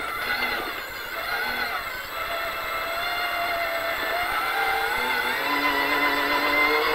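Toyota Hilux rally-raid truck's engine heard from inside the cockpit, under way. Its pitch sags for the first couple of seconds, then climbs steadily as the truck accelerates.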